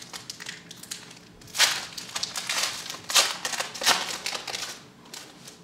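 A football card pack's wrapper being torn open and crinkled by hand, in a run of crackling tears loudest between about one and a half and four seconds in.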